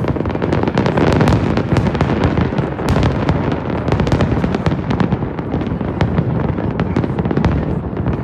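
Fireworks display in full barrage: dense, overlapping bangs and crackling, many a second with no break, over a steady loud din of distant explosions.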